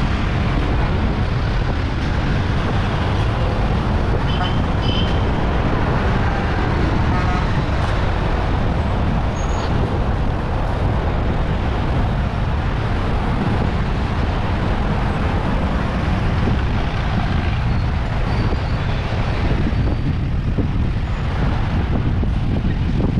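Steady street traffic noise and rushing air on an action camera's microphone, heard from a moving fixed-gear bicycle.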